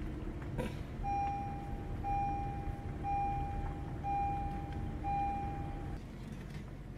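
A car's electronic warning chime beeps five times, about once a second, over the low rumble of the car driving on a dirt track. Both cut off suddenly near the end.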